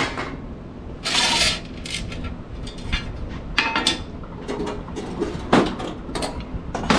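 Metal clanks and rattles as a metal charcoal cage is fitted into the back of a charcoal pizza oven: a string of sharp knocks, with a longer scraping rattle about a second in.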